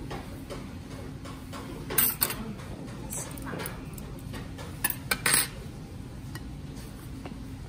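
Metal cutlery clinking against bowls and plates during a meal, with a couple of sharp clinks about two seconds in and a quick cluster around five seconds, over a steady dining-room background.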